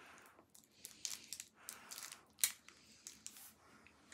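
Plastic wrapper of a Toxic Waste sour sweet crinkling and tearing as it is struggled open, in a run of sharp crackles and rustles, the loudest about two and a half seconds in.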